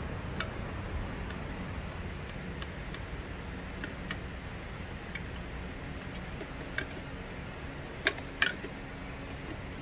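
Scattered light clicks and taps of hand work on a machine's parts, the two loudest about eight seconds in, over a steady low hum.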